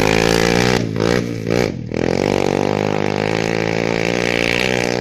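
Motorcycle engine running under throttle; its note dips and climbs back twice in the first two seconds, then holds steady.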